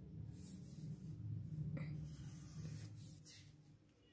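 Pencil scratching faintly on drawing paper in a few short strokes, over a low steady hum.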